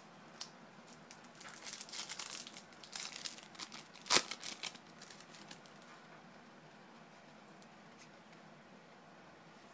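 Baseball card pack wrapper crinkling and tearing open, with one sharp snap about four seconds in that is the loudest sound.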